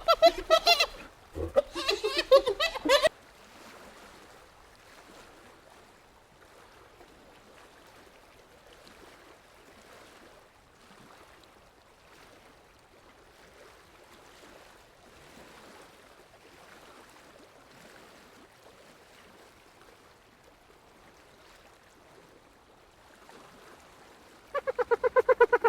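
Hyena calls in the first three seconds, followed by about twenty seconds of faint background noise; near the end a hyena starts a rapid, evenly pulsed string of high calls, the giggling 'laugh'.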